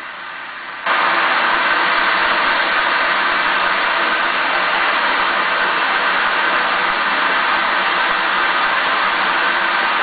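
Steady rush of water cascading over rocks in a mountain stream, a loud even hiss that starts abruptly about a second in.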